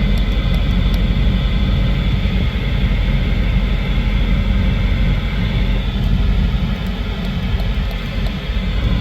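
Steady rumble and hiss of a running vehicle heard from inside the cab, with a few faint clicks. The handheld CB radio being tested gives no sound of its own: it is dead.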